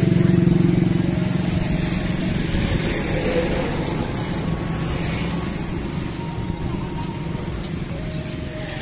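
A motor vehicle's engine running steadily with a low rumble, easing off slightly over the seconds.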